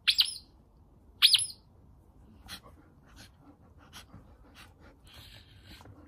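Squeaky ball inside a car-wash mitt squeezed twice, giving two sharp, high squeaks in the first second and a half. After that come fainter scattered clicks and scuffs as an Alaskan malamute paws at the mitt and mouths it.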